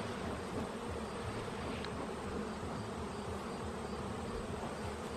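Honeybee colony buzzing in an open hive during an inspection: a steady, dense hum of many bees.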